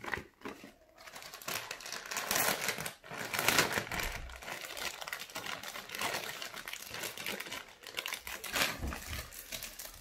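Thin clear plastic bags crinkling and rustling as they are handled and opened, starting about a second in and going on irregularly.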